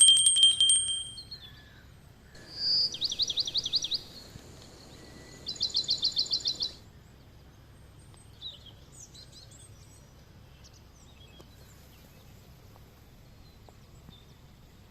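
Forest birds singing: a loud burst of sharp call notes at the start, then two fast trills of rapidly repeated high notes about three and six seconds in, followed by faint scattered chirps over a low steady background.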